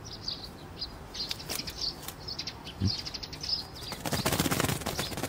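Pigeon wings flapping in a rapid flurry about four seconds in, the loudest sound, over repeated short high bird chirps. There is a single soft knock just before the flurry.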